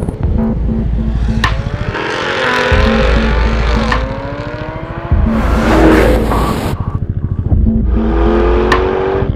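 Jaguar F-Type sports car engine revving hard under acceleration, its pitch climbing repeatedly as it pulls through the gears.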